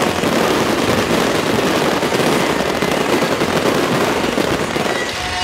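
Fireworks and firecrackers going off in a dense, continuous crackle of rapid pops.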